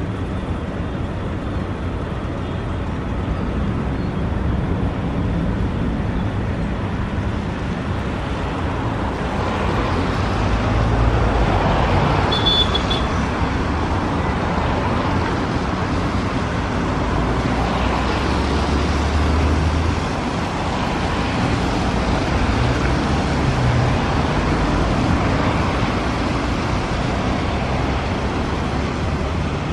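Departing Boeing 787's jet engines at climb power, a steady, broad rumble, mixed with wind buffeting the microphone.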